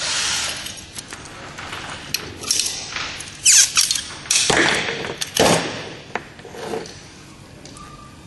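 Handling of grey polybutylene pipe, push-fit fittings and a crimping tool: a series of scrapes, knocks and rustles, loudest in the middle and quieter near the end.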